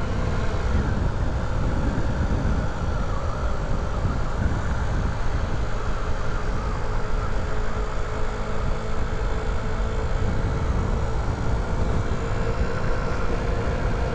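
Honda Ruckus scooter's 49cc four-stroke single-cylinder engine running steadily at cruising speed, with wind rumbling on the microphone.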